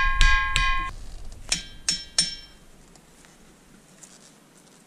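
A hammer striking a ringing rock boulder six times. The boulder answers each blow with a short, bell-like metallic ring of several clear tones. The first three quick strikes ring lower and longer; the three about a second later ring higher.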